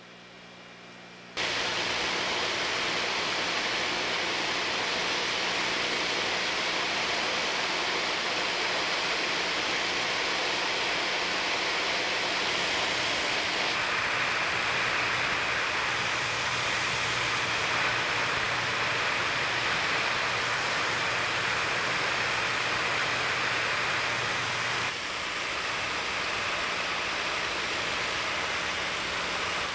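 Steady drone of an airplane in flight, engine and rushing air heard together as an even noise with a low hum. It starts abruptly about a second in and shifts in tone around halfway and again near the end.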